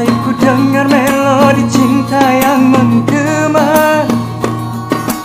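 Dangdut song playing: a singer's voice carrying the melody over the band's accompaniment.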